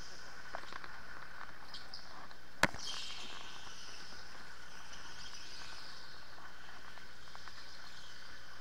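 Electric go-kart driving on an indoor track: a steady high whine and hiss, with one sharp knock about two and a half seconds in, followed by a brief falling squeal.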